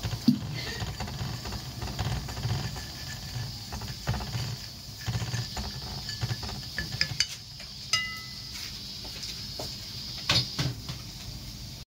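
Wooden chopsticks stirring sauce on a ceramic plate: repeated light clicks, taps and scrapes against the plate, with one brief squeak about eight seconds in.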